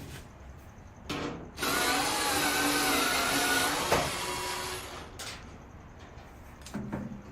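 Electric screwdriver with a 5/16 hex bit spinning out the screws that hold a dryer's front panel: a brief spin about a second in, then a steady run of about two and a half seconds that tapers off.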